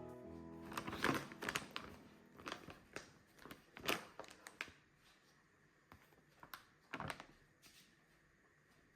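Things being handled at close range: irregular light taps and clicks with faint rustling, busy for the first few seconds and then sparser.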